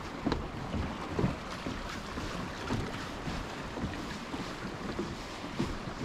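Wind buffeting the microphone over the steady wash of waves at high tide, with soft knocks about every half second from footsteps on a wooden boardwalk.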